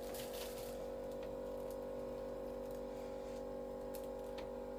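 Steady machine hum made of several held tones, with a few faint clicks and light taps.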